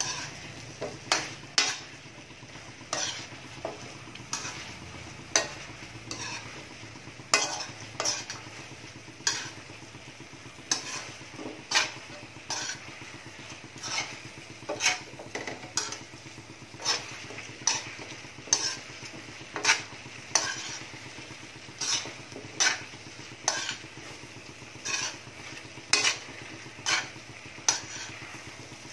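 Metal spoon stirring chicken feet in an aluminium pan, clinking and scraping against the pan about once or twice a second, over a steady sizzle as the adobo cooks down.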